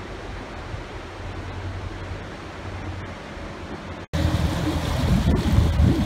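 Wind buffeting the microphone over the low steady hum of a passing canal narrowboat's diesel engine. About four seconds in, the sound breaks off briefly, then comes back much louder as gusty rumbling with the engine running close by.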